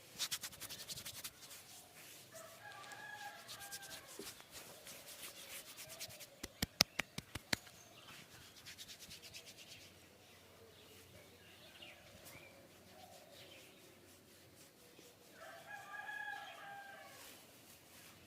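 Hands working on the head in a massage: a quick run of light taps at the start, soft rubbing, and a burst of about seven sharp clicks in quick succession around the middle, the loudest sounds here. Twice, a long call with several stacked tones sounds faintly in the background.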